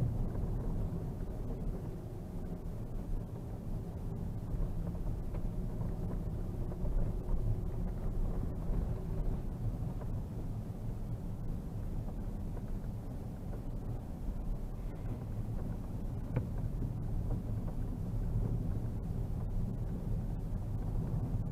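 Steady low rumble inside the cabin of a Škoda Superb II 3.6 VR6 with 4x4 and DSG, cruising on a snow-covered road: engine and tyre noise, with no revving or sudden changes.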